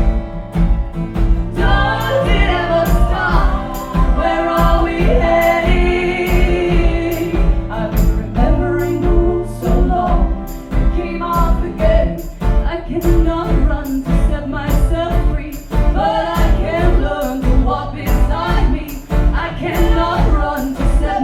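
Live band music with a steady drum beat and a choir singing along.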